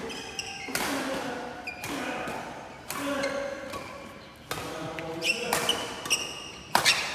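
Badminton rally: rackets striking the shuttlecock at irregular intervals of about a second, coming quicker near the end, with short high squeaks from shoes on the court floor.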